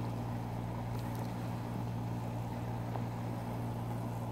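Steady low mechanical hum of kitchen equipment around a gas range, with a faint hiss over it and no change throughout.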